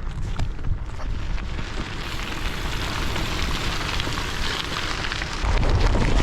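Bicycle tyres crunching and crackling over a gravel track, with wind buffeting the microphone. The buffeting grows heavier near the end.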